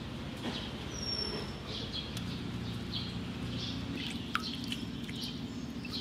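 Water splashing and dripping in a stainless-steel basin as star jelly (Nostoc) is rinsed by hand, with a steady low hum underneath. A couple of short bird chirps, one about a second in and a falling one near the end.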